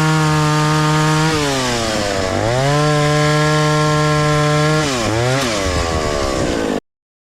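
Vintage 1960s Stihl 041 AV two-stroke chainsaw running flat out and cutting wood. The engine note sags under load in the cut about a second in and again near the five-second mark, picking back up to full revs in between. The sound cuts off abruptly near the end.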